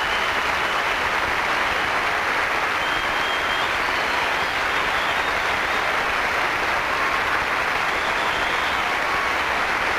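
Large audience applauding steadily, a dense unbroken clapping.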